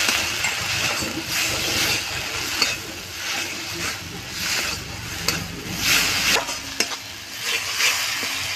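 A flat spatula stirring and scraping spiced onion-tomato masala paste around a wok, in strokes about once a second, with the paste sizzling in oil as it fries. The spatula clicks against the wok a few times.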